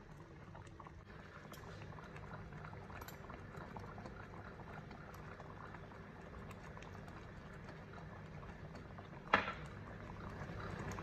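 Thick tamarind sauce simmering in a pot over a gas flame, bubbling and popping steadily. One short, louder knock about nine seconds in.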